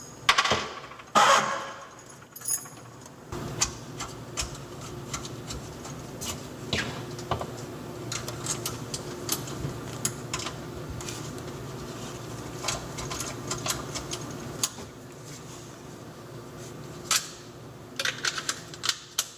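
Metal clinks and clanks of garbage disposal mounting hardware (flange, rings and screws) being fitted under a sink. Several sharp knocks come in the first second or so, then scattered light clicks over a steady low hum.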